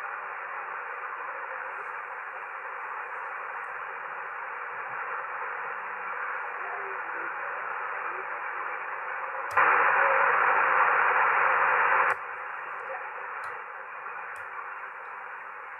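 Shortwave receiver hiss from an Icom IC-R71E tuned to an empty stretch of the 20 m band, heard through a bhi NEIM1031 DSP noise-cancelling unit. It is a steady rushing static with no one transmitting. About ten seconds in, the hiss jumps much louder for about two and a half seconds, framed by clicks, as the noise-cancelling unit's controls are switched. A couple more faint clicks follow.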